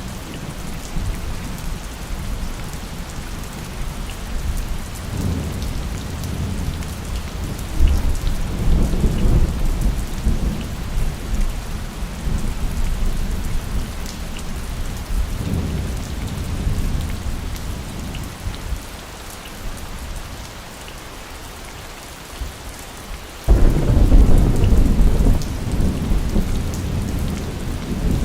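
Steady heavy rain of a rainstorm with rolling thunder. Low rumbles swell a few seconds in and again around the middle, and a sudden louder thunderclap rumbles near the end.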